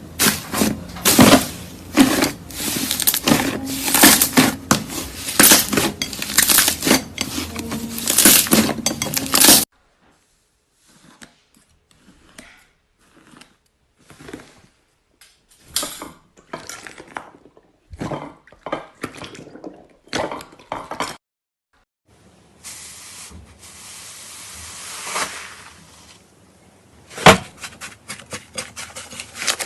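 Slime being handled, giving clicky, crackling pops and squishes: a dense run for the first ten seconds, then scattered clicks, a few seconds of rustling hiss, and one sharp click near the end.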